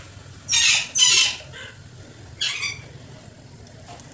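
Screwdriver tightening the screw on the wire guard's rim clamp of a Roxy cabin fan, squeaking in three short squeals: about half a second in, about a second in, and about two and a half seconds in.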